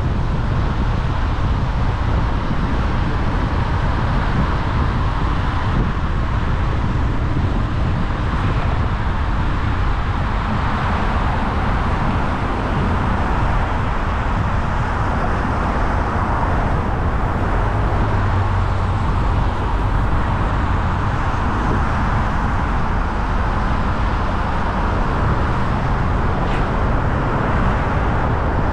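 A car driving: steady road and tyre noise with a low rumble underneath, unchanging throughout.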